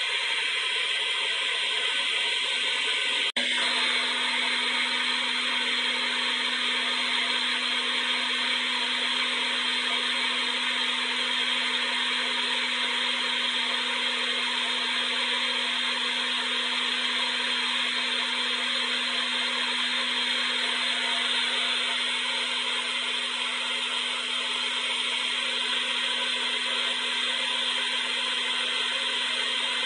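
Hair dryer running steadily, a continuous rush of blown air over its motor's whir. About three seconds in there is a brief click and dropout, after which a steady low hum runs under the air noise.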